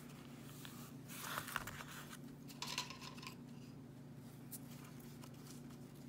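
Light handling noises, clicks, taps and scrapes of small objects being moved on a tabletop, in two short clusters about a second in and near the middle, over a steady low hum.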